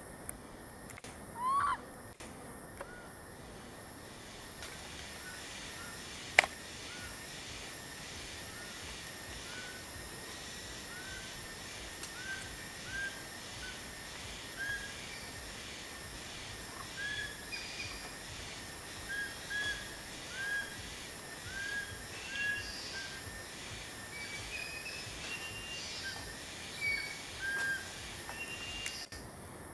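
A series of short, high chirping animal calls, repeating about once or twice a second over a steady hiss, with a louder rising call near the start and a single sharp click about six seconds in.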